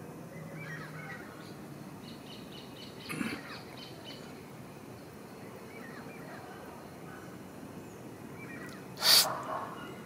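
Birds chirping faintly now and then over a steady outdoor background, with a single sudden loud, sharp sound about nine seconds in.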